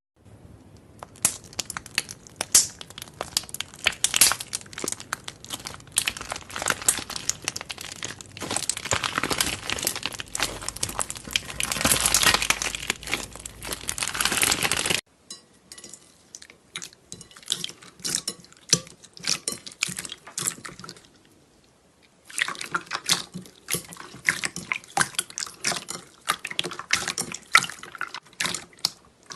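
Slime being squeezed and kneaded by hand: dense, wet, sticky crackling and clicking. About halfway through it cuts suddenly to a sparser stretch of clicks, pauses briefly, then picks up again.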